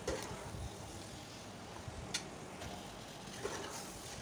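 Metal slotted spoon stirring beef pieces and masala in a metal cooking pot, with a few faint clicks and scrapes against the pot over a steady low hum.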